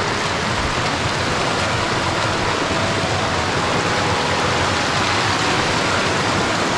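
Shallow river rushing over rocks in small rapids, a steady rush of water.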